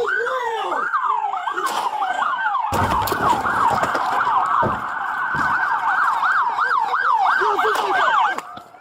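Several emergency-vehicle sirens wailing in fast yelp mode, overlapping, each rising and falling about three times a second. A low rumble joins about three seconds in.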